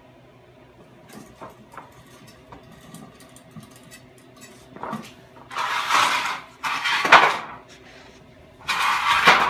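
1951 Cordomatic spring-loaded cord reel paying out and rewinding its cord as the trouble light is pulled down and let back up. A few faint clicks, then three loud metallic rattling runs of about a second each.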